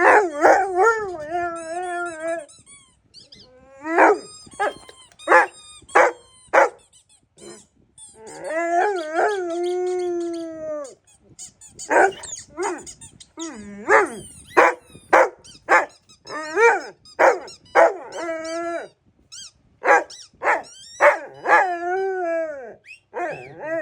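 A dog barking in short single barks, mixed with longer howling calls that bend in pitch; one long howl about eight seconds in falls away at its end.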